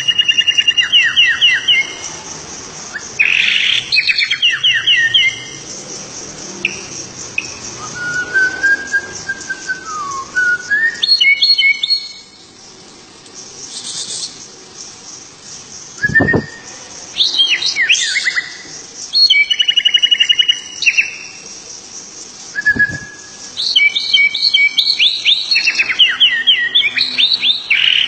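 A songbird singing in loud phrases of rapid trills and quick rising sweeps, with a clear gliding whistle partway through, broken by short pauses.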